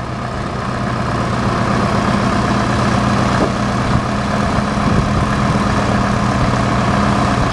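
Farm tractor engine running steadily, growing gradually louder.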